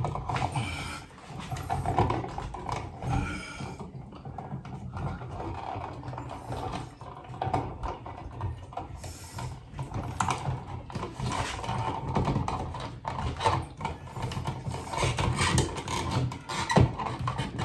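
Irregular small clicks, knocks and scrapes from a wall switch and its wires being handled and pushed into an electrical box, over a steady low hum.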